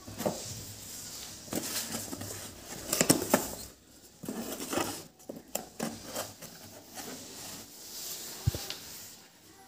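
Handling noise of aluminium LED TV backlight strips and a cardboard box being moved about on a wooden table: scattered clicks, taps and rustles, with a few louder knocks, one dull knock a little after eight seconds in.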